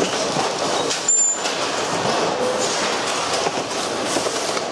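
Plastic pachinko machine frame being slid and turned over on a workbench: continuous scraping and rattling, with loose screws shifting inside it.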